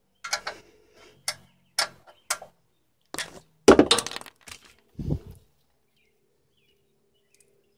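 A metal wrench clinking on the oil pan drain plug: four sharp clinks about half a second apart, then a louder run of metallic clatter and knocks from about three to five and a half seconds in.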